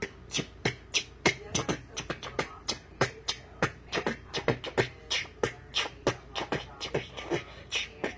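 Mouth beatboxing: a quick, uneven run of percussive clicks and pops, about four or five a second.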